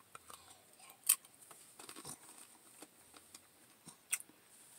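Faint close-up mouth sounds of a man chewing a bite of food: soft, irregular clicks and smacks, with a sharper click about a second in and another near four seconds.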